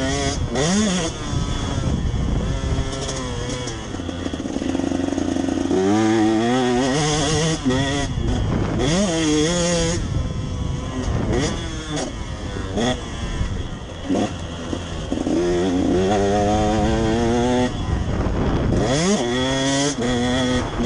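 KTM motocross bike's engine heard from on board, revving hard as it accelerates, its pitch climbing again and again and dropping at each gear change or roll-off of the throttle.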